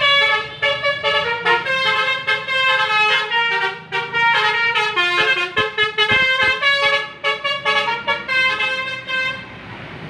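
A tour bus's basuri telolet horn, a multi-tone musical air horn, playing a quick melody of changing notes. The melody stops shortly before the end.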